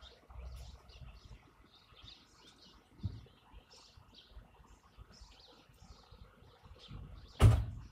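Small birds chirp throughout over the faint low rumble and a dull thud of a building being demolished by an excavator in the distance. A sudden loud thump near the end is the loudest sound.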